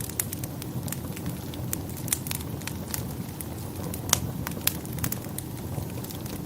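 Wood fire burning in a fireplace: a steady low rumble of flames with irregular sharp crackles and pops, a few louder snaps about 2, 4 and 4.7 seconds in.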